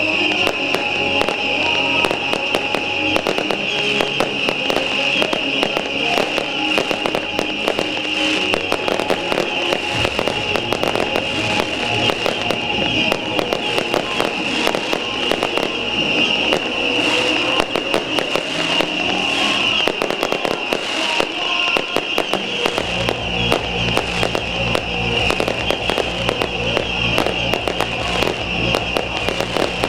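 Beehive firework barrage (fengpao): hundreds of small rockets going off in a dense, continuous crackle of rapid pops, with a steady high hiss. Music plays underneath.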